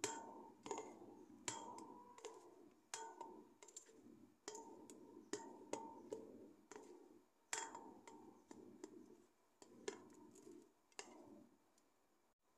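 Faint eating sounds of a person eating rice with fish curry by hand: irregular, soft clicks and smacks of chewing and of fingers working the food.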